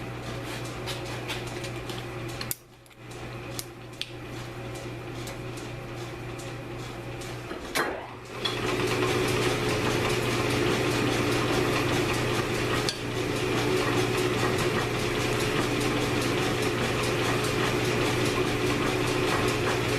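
Metal lathe running at 475 RPM while a carbide insert turns down a steel rifle barrel, with a steady hum and metallic scraping and clinking of the cut. The sound gets louder and fuller about eight and a half seconds in.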